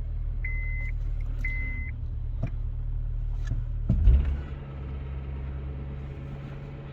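A car's low running rumble, with a short high beep about once a second in the first two seconds. About four seconds in comes a sudden loud clunk, and the low running sound then changes and carries on steadier.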